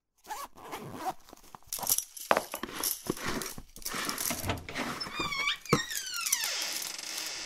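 Irregular crunching steps and rustling, then about five seconds in a few short high falling cries and one long cry sliding down in pitch from an animal.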